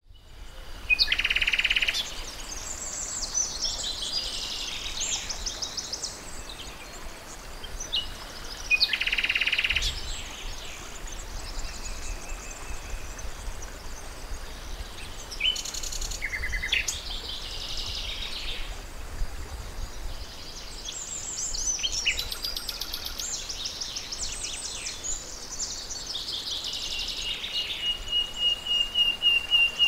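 Several songbirds singing: varied high chirps and trills throughout, and near the end a long run of rapid repeated notes.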